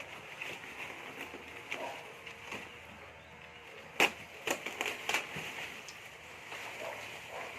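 Scattered crackling and clicking as an anthurium's root ball is worked loose from its old pot and potting soil, with one sharp click about four seconds in and a few smaller ones after it.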